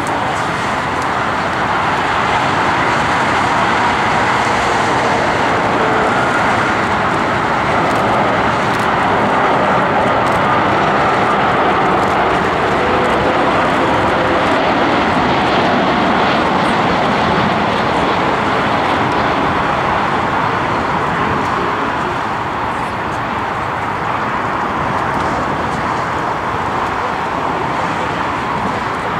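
Airbus A330-200 twin jet engines on final approach, a loud steady jet noise with a faint whine in it, easing a little about two-thirds of the way through as the airliner comes down over the runway.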